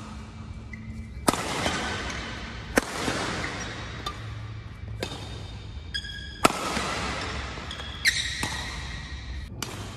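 Badminton smashes with a Yonex Nanoray Z Speed racquet: four sharp cracks of strings striking the shuttlecock, each with a short echo from the hall. The first two come about a second and a half apart, and the last two come about four seconds later, again a second and a half apart.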